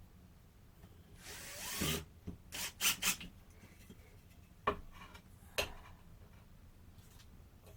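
Wood and tools being handled during shelf fitting: a short scraping rub about a second in, then a few sharp clicks and knocks spread over the next few seconds.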